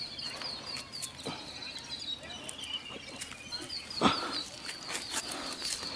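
Bare feet stepping and shuffling on rock and rustling through grass and scrub while climbing down a slope, with one louder thump about four seconds in. Behind it, a steady high-pitched chirping repeats several times a second.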